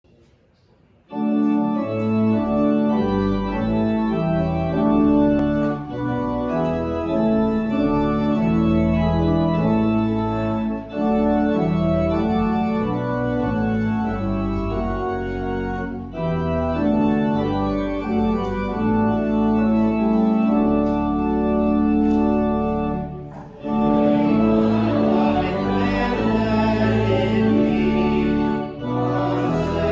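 Church organ starts playing about a second in, sustained hymn chords, as the introduction to the sending hymn. About three-quarters of the way through, after a brief pause, the congregation begins singing the hymn with the organ.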